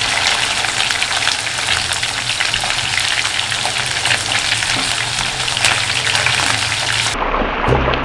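Duck pieces frying in hot oil in a non-stick pan, a dense steady sizzle and crackle as metal tongs turn them while they brown. Music comes in near the end.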